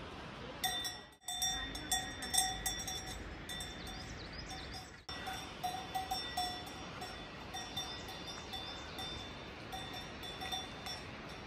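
Several cowbells clanking at uneven intervals, overlapping ring after ring. The sound briefly drops out twice, about a second in and near the middle.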